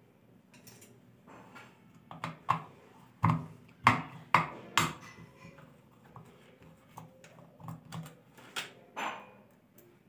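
Irregular short knocks and clicks from the mixer grinder's plastic housing and wiring being handled, thickest and loudest a few seconds in.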